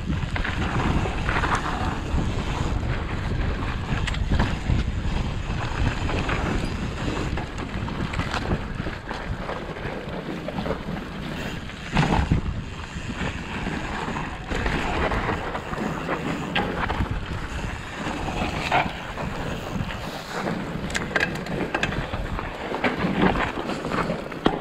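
Mountain bike ridden over packed snow: a steady rumble of wind buffeting the microphone and tyre noise, with scattered crunches and knocks from the tyres and bike, a sharper knock about halfway through.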